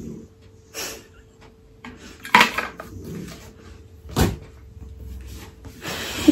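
A few sharp knocks and clicks as a plastic water bottle is handled and put down, with a short muffled sound from a mouth held full of water.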